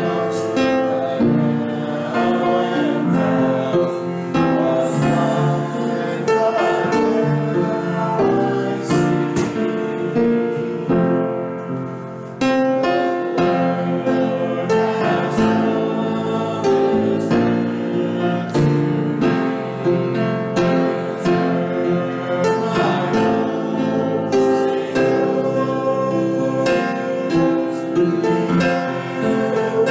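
A hymn sung by voices with piano accompaniment, held notes changing chord by chord, as a processional hymn at the opening of a church service. The music dips briefly about twelve seconds in, then carries on.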